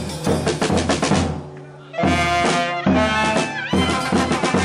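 Charanga street band playing live: bass drum, snare drum and cymbal beating a steady rhythm under saxophones and brass. The playing thins out briefly about a second and a half in, then the horns come back with long held notes over the drums.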